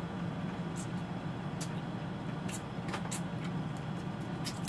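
Eating crab by hand: a handful of short, sharp clicks and cracks from shells being broken and picked apart, over a steady low hum.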